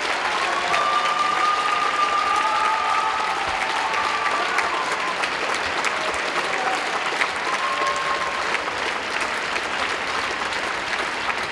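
Large arena crowd applauding steadily after a skating performance, with a few drawn-out high calls from the audience above the clapping.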